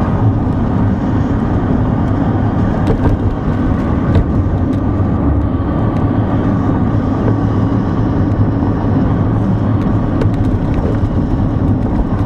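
Car driving slowly on a rough, patched country road: a steady low engine and tyre rumble, with a few light knocks from bumps in the road about three and four seconds in.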